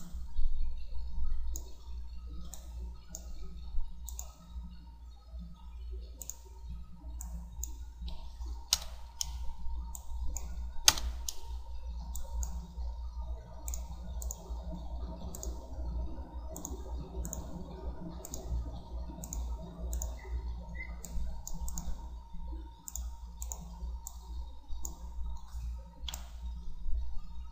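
Computer mouse clicking, single sharp clicks about once a second with a louder one about eleven seconds in, over a steady low hum.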